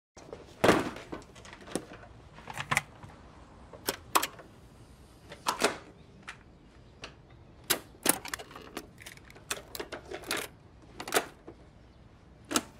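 A run of sharp, irregular plastic clicks and clunks from a Sony portable cassette player being handled and its keys pressed, the loudest near the start.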